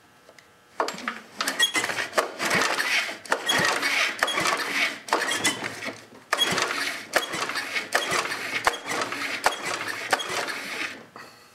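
Lawn mower engine being turned over by hand to check for spark, the bared spark plug wire held just off the plug: two stretches of about five seconds each of mechanical whirring shot through with clicks, with a short pause between them.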